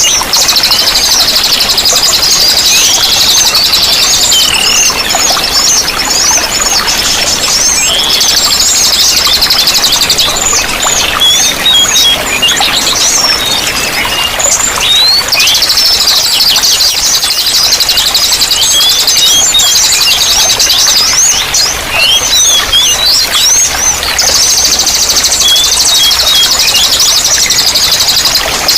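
Small songbirds singing in a dense chorus: rapid high chirps, trills and sweeping notes, some stretches thick with continuous chatter, over a steady rush of running water.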